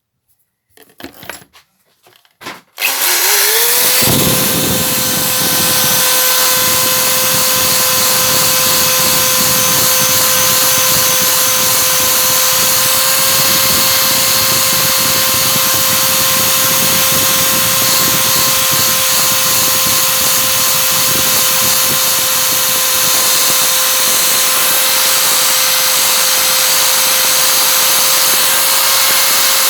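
A few light handling knocks, then about three seconds in an electric drill spins up to a steady whine, driving a wire brush that scours rust and grime off a steel pipe wrench with a harsh continuous scratching hiss.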